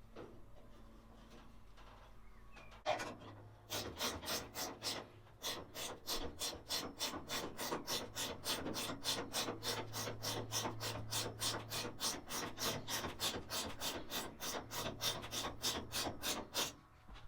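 Jack being worked to push a car floor panel up into position, a steady run of rasping strokes about three a second.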